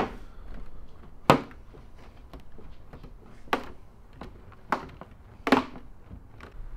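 About five sharp taps and knocks, spread unevenly over several seconds, as hands press and pat a carbon fibre trunk spoiler onto a car's trunk lid to bed its adhesive tape.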